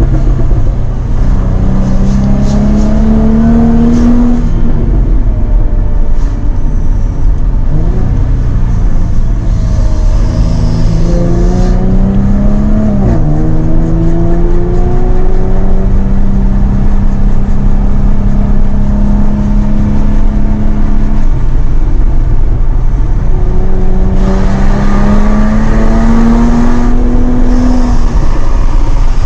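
Jaguar F-Type sports car engine pulling hard through the gears. The pitch climbs and then drops back at each upshift, with a quick dip and recovery about thirteen seconds in and a steady cruising stretch in the middle.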